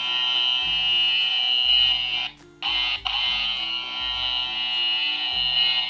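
Play-Doh toy hair trimmer's electronic buzz, a steady high-pitched buzzing that stops briefly a little over two seconds in and then starts again, over background music.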